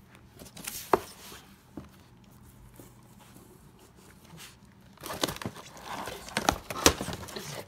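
Shiba Inu ripping and nosing at a cardboard box: cardboard tearing and packaging crinkling. A short burst with a sharp snap about a second in, then a quiet spell, then a longer stretch of rustling and tearing with several sharp snaps over the last few seconds.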